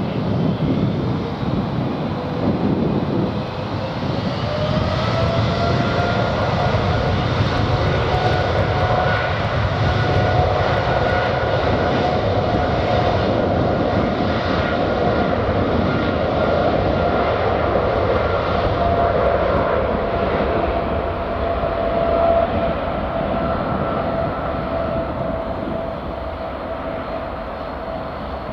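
Boeing 777's twin jet engines spooling up to takeoff thrust. A whine climbs in pitch a few seconds in, then holds steady over a loud rumble as the airliner rolls down the runway. It eases off slightly near the end as the plane moves away.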